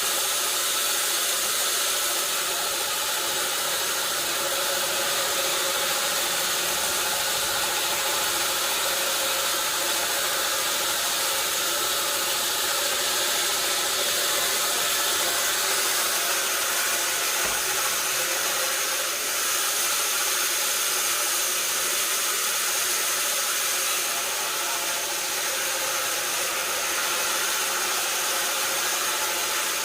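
Sawmill saw running steadily through a mahogany log, a constant machine whine with a hiss over it and no break.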